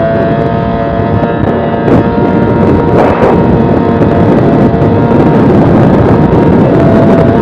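Yamaha 20 hp outboard motor of a racing boat running flat out at a steady pitch, with loud wind rush on the microphone and water noise from the hull. A short burst of noise comes about three seconds in.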